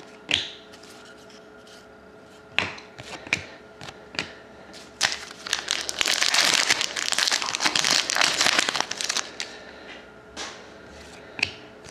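Hockey card pack wrapper being handled and torn open, with a few short rustles and snaps. This is followed by several seconds of dense crinkling from about five seconds in, then a couple more snaps near the end.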